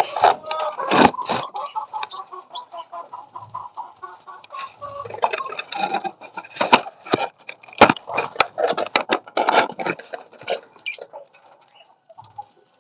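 Hens clucking in runs of quick notes, mixed with sharp taps and scratching; it quietens near the end.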